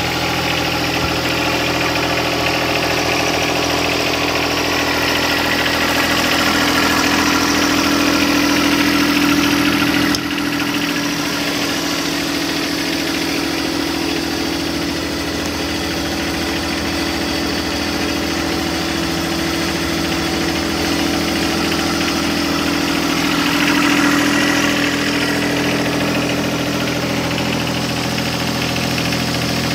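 John Deere 2025R compact tractor's three-cylinder diesel engine idling steadily.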